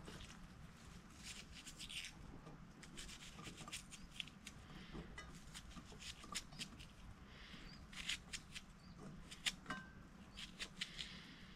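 A knife cutting a peeled onion held in the hand, making quiet, irregular crisp clicks and snicks as pieces are cut off.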